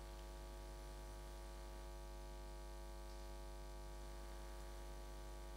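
Faint, steady electrical mains hum with a buzz of evenly spaced overtones, and no other sound.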